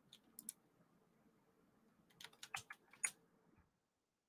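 Faint clicks of a computer keyboard being typed on: a pair about half a second in, then a quick run of keystrokes between two and three seconds in.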